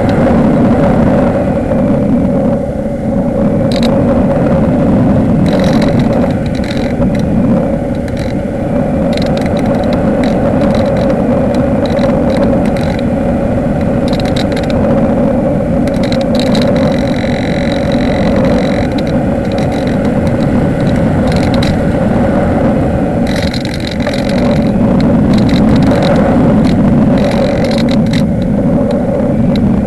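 A radio-controlled model airplane in flight, heard from its on-board camera: the motor and propeller drone steadily while wind rushes over the microphone. A thin high whine rises and fades several times.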